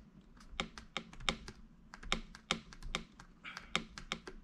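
Stamp pressed and tapped down onto a paper panel on a craft table: a run of sharp, irregular taps and clicks, two or three a second.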